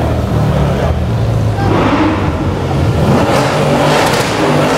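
Sports cars' engines running at low speed in slow traffic, a deep steady drone with a rev that rises and falls about two seconds in.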